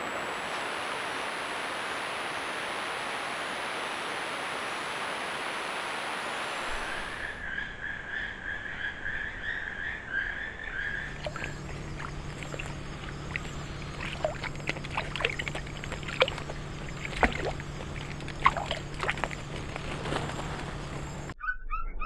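Irregular splashing and sloshing of an animal moving through shallow water over a low steady hum. This follows a steady hiss of insects and then a high steady trill.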